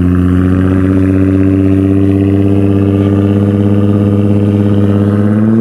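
Car engine pulling steadily under load. Its drone rises slowly in pitch as the revs build.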